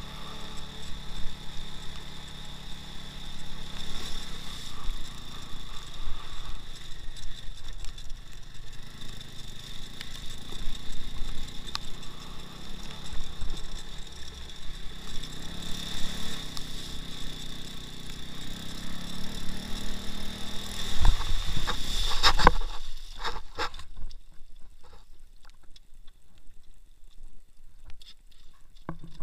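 Two-wheel-drive off-road motorcycle engine running, its pitch rising and falling as the throttle changes. About two-thirds of the way through come a few loud knocks, and then the engine sound stops, leaving only faint scrapes and clicks.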